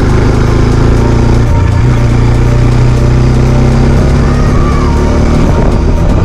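Bajaj Dominar motorcycle engine running steadily under way, with a shift in engine note about a second and a half in, over wind and road rush.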